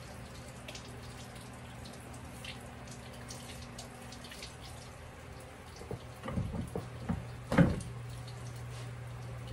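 Kitchen faucet running into the sink as bell peppers are rinsed under it, water spattering, over a steady low hum. About six seconds in come a few knocks and rustles; the loudest is about a second and a half later.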